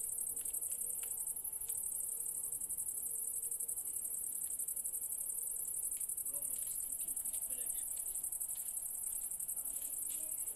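Crickets chirping in a steady, high-pitched chorus with a fast pulse, with scattered faint clicks.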